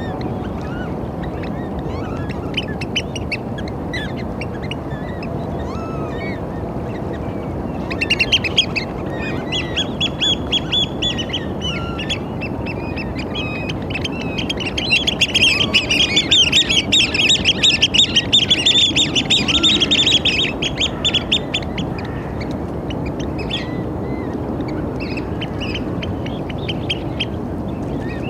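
Eurasian oystercatchers calling in runs of rapid, high piping notes. There are short bouts about eight and ten seconds in, then a long, loud bout from about fifteen to twenty-one seconds, with fainter calls near the end. A steady low rush of background noise runs underneath.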